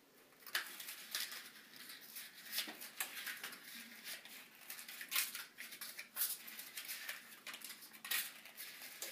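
Paper cupcake liners being peeled apart and pressed into a muffin tin: a run of irregular paper crinkles and rustles.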